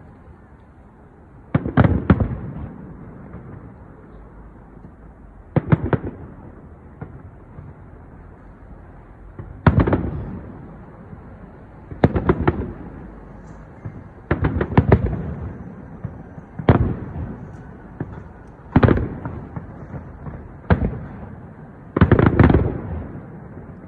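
Fireworks bursting overhead in about nine volleys, each a rapid cluster of sharp bangs that trails off in echo, coming irregularly a couple of seconds apart.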